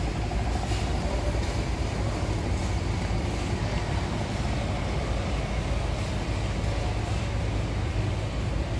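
Steady low mechanical rumble with a few faint scattered ticks.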